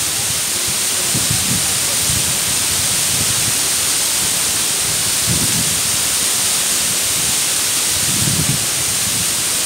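Mumlava waterfall rushing over rock ledges into its pool: a steady, loud hiss of falling water.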